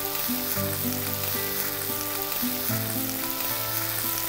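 Flour-coated chicken pieces deep-frying in hot oil, a steady sizzle, with soft background music underneath.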